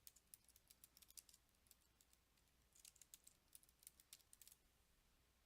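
Faint computer keyboard typing in two short runs of quick key clicks, with a pause of about a second between them.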